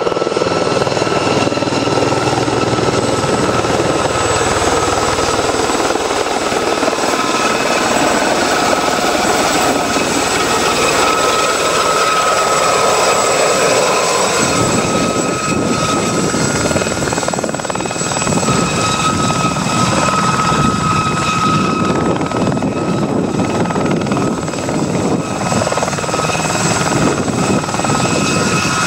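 Aérospatiale Gazelle helicopter flying low past and then hovering near the ground. A steady high whine runs over the beat of the rotor blades, and the beat becomes plainer about halfway through.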